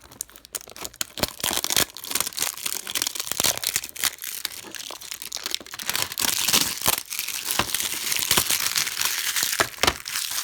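Plastic packaging crinkling and tearing as it is handled and pulled off a boxed tool set, a dense run of crackles and rustles.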